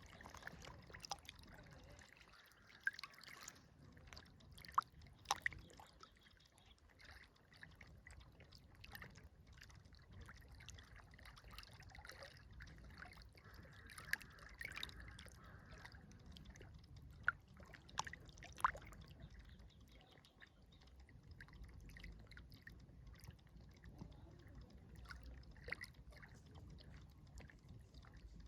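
Quiet river water trickling, with irregular sharp splashes and drips over a low, steady rumble.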